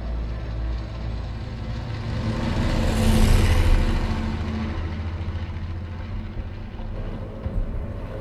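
Film soundtrack of aircraft engines: a deep rumbling drone that swells to a peak about three seconds in as the planes pass, then slowly fades.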